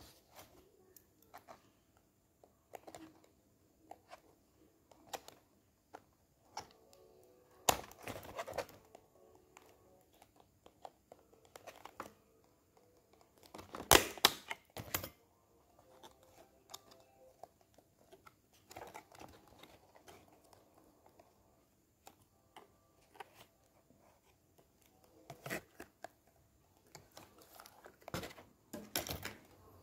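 Clear plastic packaging of a die-cast toy car being handled and opened: scattered clicks and crinkles, with the loudest crackling about 8 seconds in and again, loudest of all, about 14 seconds in.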